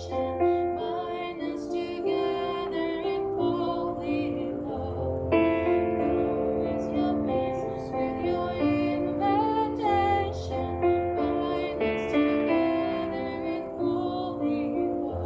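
Slow worship hymn music, with keyboard chords and low bass notes held under the melody.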